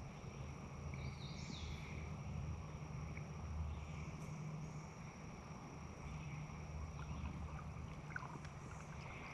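Quiet outdoor ambience: an uneven low rumble, a faint steady high-pitched whine, and a short bird chirp about a second and a half in.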